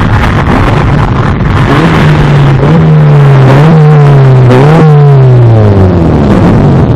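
Ferrari 488's twin-turbo V8 accelerating past. The engine pitch climbs, dips twice about a second apart on quick upshifts, then falls away as the car goes by.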